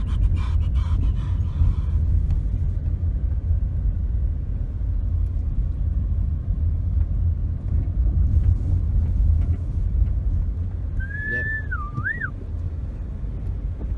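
Steady low rumble of road and wind noise from a moving car. About eleven seconds in comes one short whistle that holds a note, dips and rises again.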